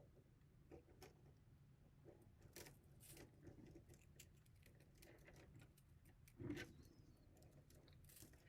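Faint scattered clicks and light taps from plastic filament and a spool being handled and wound by hand, with one louder knock about six and a half seconds in.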